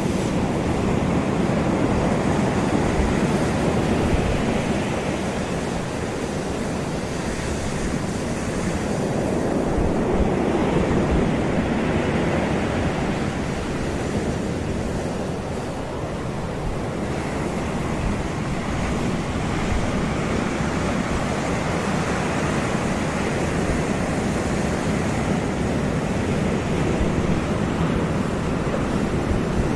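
Ocean surf breaking and washing up the beach, a steady wash that swells and eases slowly, with wind rumbling on the microphone.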